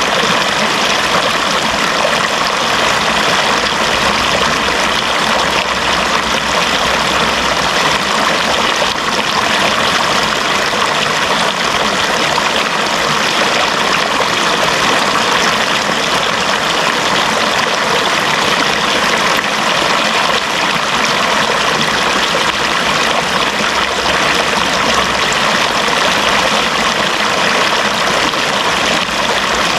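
Running water flowing steadily, an even sound with no breaks or changes.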